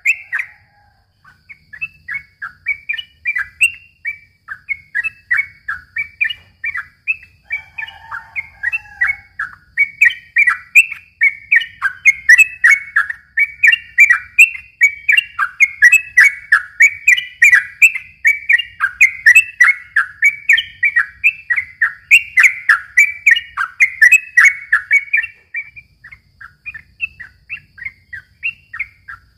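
Sooty-headed bulbul (trucukan) singing a long, rapid run of short chattering notes, about four or five a second, with a brief pause just after the start and the notes thinning out near the end.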